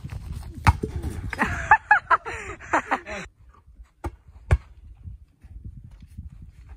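Short wordless voice sounds and a sharp knock in the first three seconds, then a quieter stretch broken by two sharp knocks about half a second apart.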